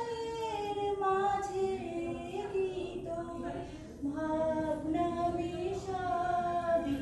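A woman singing solo, a slow melody with long held notes.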